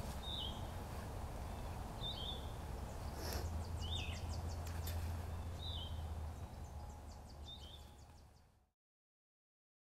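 A bird giving a short chirp every couple of seconds, five in all, over a low steady rumble. The sound fades out and drops to silence near the end.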